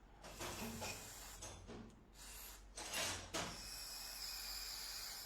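Handling of small metal engine parts: several short scrapes and rubs, the loudest about three seconds in, then a steady faint noise.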